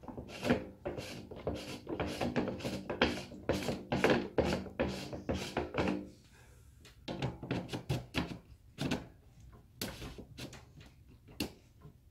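Handling of a 6-inch PVC pipe and its freshly cemented end cap. A dense run of clicks and creaks for about six seconds, then a few separate knocks as the pipe is moved.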